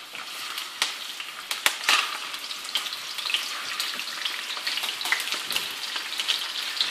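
Raw lamb pieces sizzling in hot olive oil in a clay tajine as they are laid in, a steady crackling fry. There are a few sharp clicks in the first two seconds, and the crackle grows busier toward the end.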